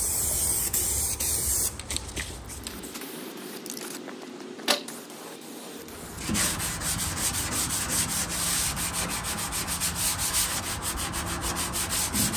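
An aerosol can of high-build primer spraying with a steady hiss, stopping after a couple of seconds. After a quieter stretch with a single click, a sanding block is rubbed by hand over the primed tractor fender in rapid, even back-and-forth strokes: block sanding the primer smooth.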